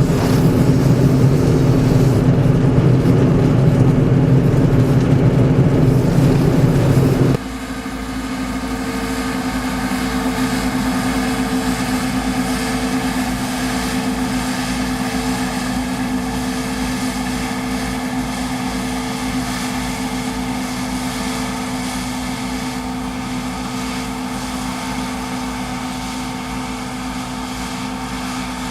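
John Deere 1075 combine harvester running steadily while combining barley. About seven seconds in the sound changes abruptly, from a louder, rougher rumble to a quieter, even hum with a steady pitch.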